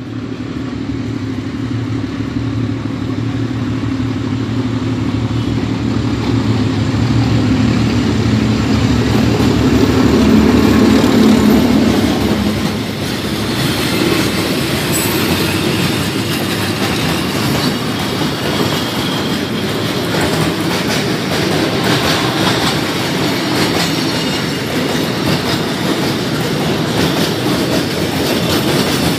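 A D12E diesel-electric locomotive's engine drones as it comes up to the crossing and passes, loudest about ten to twelve seconds in. After that the wagons of a freight train roll by, with the clickety-clack of wheels over rail joints and rattling.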